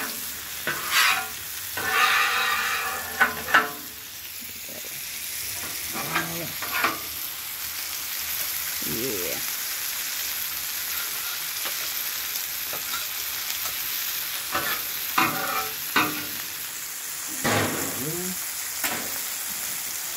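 Smash-burger patties sizzling steadily on a flat-top griddle, with a metal spatula scraping across the steel plate several times in the first few seconds and again briefly now and then.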